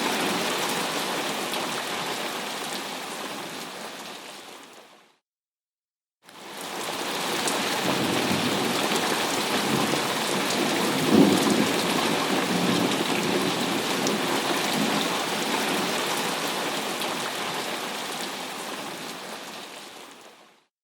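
Thunderstorm recording: steady rain hiss, with a rumble of thunder about eleven seconds in. The rain fades out to silence about five seconds in, fades back in a second later, and fades out again near the end.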